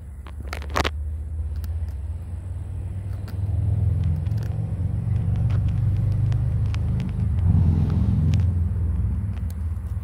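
Low rumble of a passing motor vehicle, building over a few seconds and easing off near the end, with faint scattered clicks.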